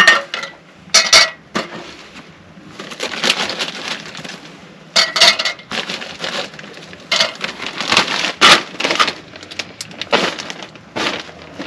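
Ice cubes clattering and clinking as they are taken from a plastic zip-top bag and dropped into metal cups, with the bag crinkling, in irregular bursts.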